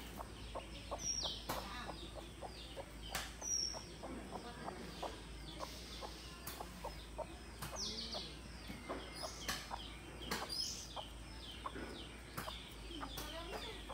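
A hen clucking while her brood of ducklings peep continually, with many short high peeps that fall in pitch.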